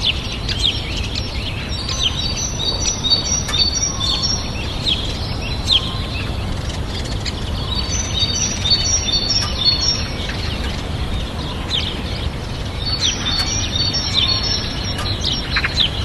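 Many caged finches chirping and singing together: quick high call notes and short song phrases overlapping, thickest in several bursts, over a steady low background rumble.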